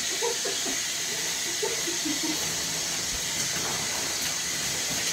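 Shower running: a steady hiss of water spray.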